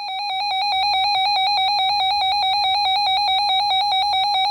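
Weather radio receiver's built-in alert alarm: a loud, rapidly pulsing electronic beep, signalling an incoming severe thunderstorm warning.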